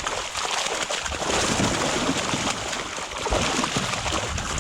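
Water splashing and sloshing as a hoop net heavily loaded with buffalo fish is hauled up at the side of the boat.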